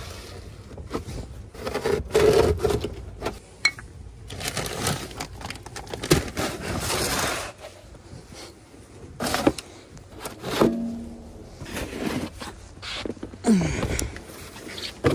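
Snow shovel being pushed and scraped along the ground and scooping snow, in irregular strokes.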